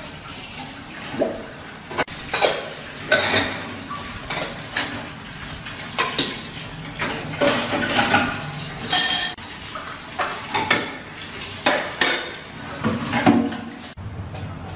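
Dishes and cutlery clinking and knocking in irregular strokes, about two a second, some with a short metallic ring.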